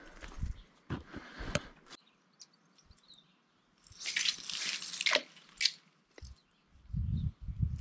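Footsteps crunching on a forest path for about two seconds, then, after a short lull, a cast with a spinning rod: a hiss of line running off the reel for about a second and a sharp click. Low rustling and thumps near the end.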